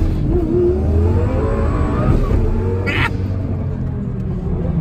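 Twin-turbo Lamborghini Gallardo V10 accelerating hard, heard from inside the cabin. Its pitch rises over the first two seconds, then it eases off and grows a little quieter, with a short sharp noise about three seconds in.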